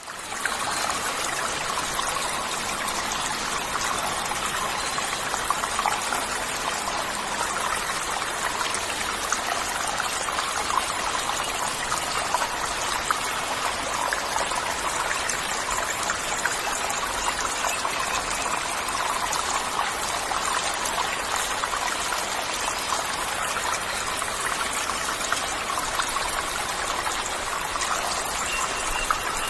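Waterfall: water falling and splashing steadily, one even unbroken noise with fine splashes throughout.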